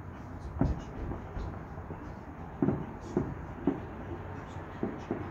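Distant fireworks bursting: about six booms at uneven intervals over a steady low background rumble.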